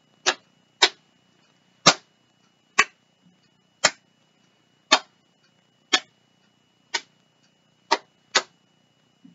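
Hands clapping and patting out a hand-clapping game pattern, ten crisp strikes at about one a second, the first two and last two coming closer together.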